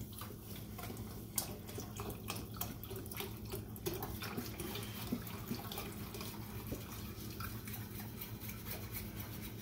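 Chicken broth pouring from a carton into a stainless saucepan of butter-and-flour roux, with a wire whisk stirring and clicking lightly against the pan, most busily in the first few seconds.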